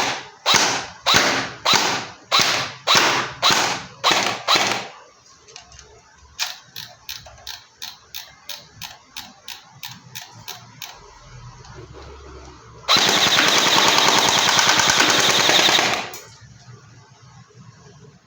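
Weihui SLR airsoft rifle, converted from gas blowback to an electric gearbox (AEG), firing: about nine loud single shots roughly two a second, then a run of quieter, quicker shots, then a full-auto burst of about three seconds.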